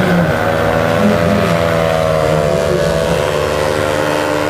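Paramotor's propeller engine running steadily overhead, its pitch drifting slowly up and down.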